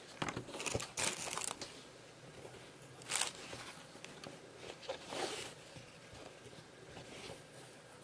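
Linen tote bag handled and unfolded by hand: irregular rustling and brushing of the fabric, with a few sharper swishes as it is shaken out and opened.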